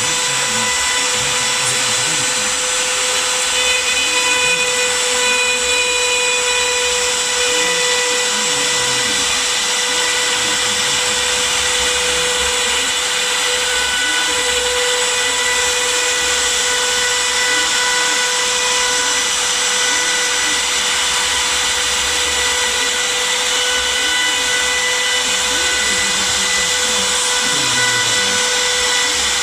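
Homemade CNC machine cutting: a steady high whine with a stack of overtones, and low tones gliding up and down beneath it.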